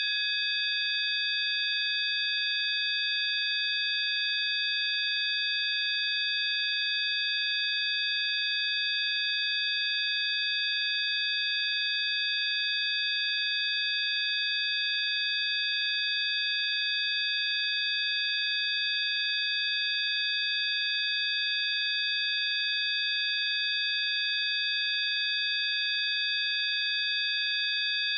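Electronically generated healing-frequency sine tones: several steady, high-pitched pure tones held together without any change.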